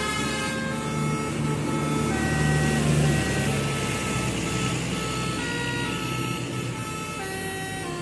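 Multi-tone 'telolet' air horn of a tour bus playing a melody of high notes that step from pitch to pitch, over the low drone of a bus engine running past, loudest about three seconds in.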